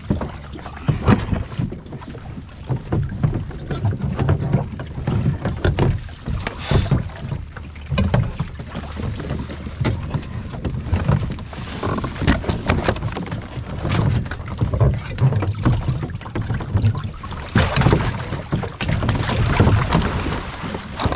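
Water sloshing and slapping against plastic kayak hulls, with irregular bumps and knocks as an overturned kayak is gripped and pulled alongside another kayak.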